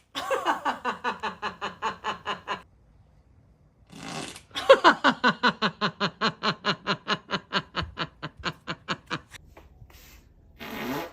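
A person laughing hard in two long bouts of rapid pulses, about five or six a second, the pitch falling through each bout, with a noisy breath in before the second bout.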